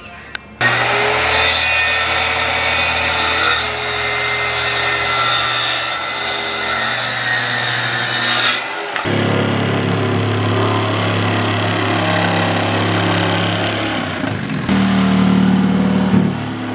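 Electric power saw cutting wood, starting abruptly about half a second in with a loud rasping cut over a steady motor tone. About nine seconds in the rasp drops away, leaving a lower, steadier motor sound that shifts again near the end.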